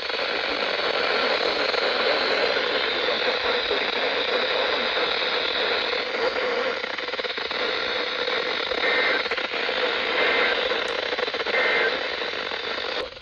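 Steady radio static hiss from the alert receiver. Near the end, three faint short data bursts come about a second apart, typical of the EAS end-of-message code.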